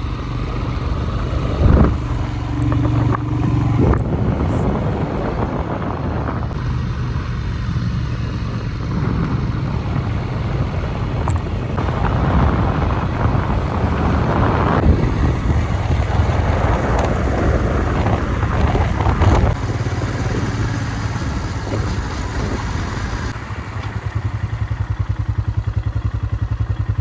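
Royal Enfield Himalayan's single-cylinder engine running as the motorcycle is ridden, a steady rapid pulse. Near the end the sound drops a little and the pulsing becomes more distinct.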